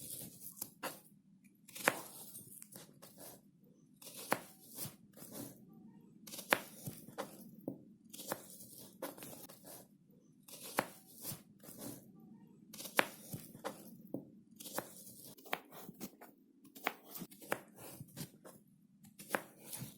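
Knife cutting through a melon: runs of crisp crunching, tearing strokes through rind and flesh, in clusters with short pauses between.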